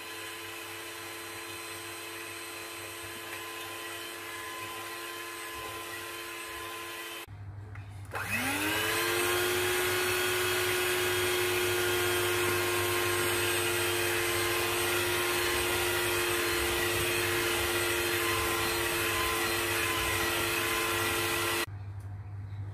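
Electric hand mixer running, its beaters turning through wheat flour as it mixes chapati dough, with a steady motor whine. About seven seconds in it stops, then starts again with a rising whine, runs louder and steady, and cuts off abruptly shortly before the end.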